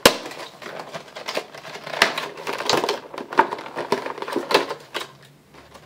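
A phone's retail packaging being opened and handled by hand: rustling with many irregular clicks and taps, and one sharp click at the start.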